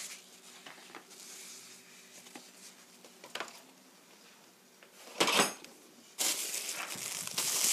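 A short clatter about five seconds in, then a plastic bag rustling loudly.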